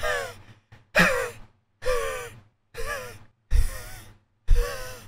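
A man laughing hard in loud, high-pitched, gasping bursts, about one a second.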